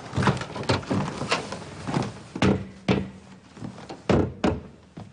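A door and people's footsteps: an irregular run of about a dozen knocks and thuds.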